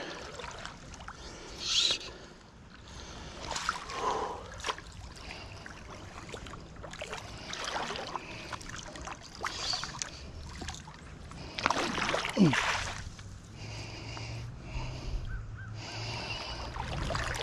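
Creek water splashing and sloshing as a hooked smallmouth bass is played on a fly rod in shallow water, with the fish thrashing at the surface in irregular bursts, loudest at about 2 s and about 12 s in.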